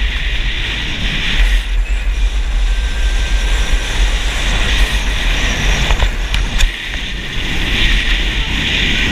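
California Screamin' steel roller coaster train running at speed on its track, heard as a heavy steady rush and deep rumble of wind buffeting a head-mounted action camera's microphone, with a few sharp clicks and rattles from the train.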